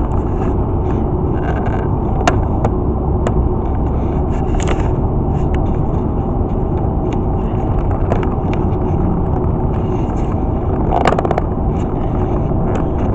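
Steady road and tyre noise of a car at highway speed, heard inside the cabin, with scattered light clicks and a short cluster of clicks about eleven seconds in.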